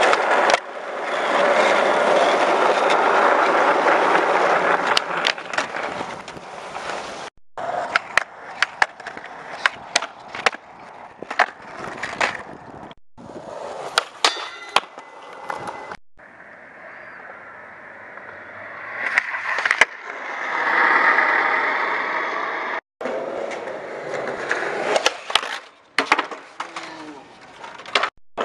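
Skateboard wheels rolling over concrete and asphalt, with many sharp pops and clacks as the board is snapped and landed. The sound cuts off abruptly several times where separate clips are spliced together.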